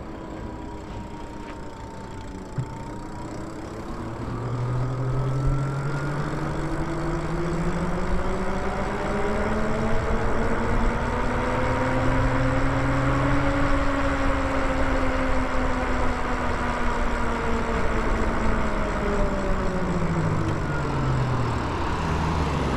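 Lyric Graffiti electric bike's motor whining while riding. Its pitch rises slowly as the bike gathers speed, peaks about halfway through, then falls as it slows near the end. Rushing wind and tyre noise grow with the speed.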